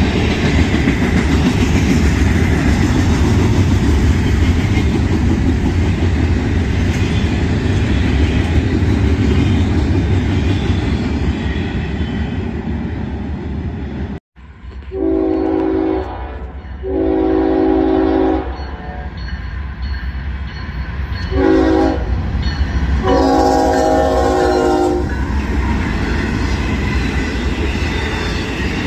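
An intermodal freight train rolls past close by, a dense steady rumble and clatter of wheels on rail. About halfway through, a diesel locomotive's multi-tone air horn sounds the grade-crossing signal: two long blasts, a short one and a long one, over the continuing rail noise.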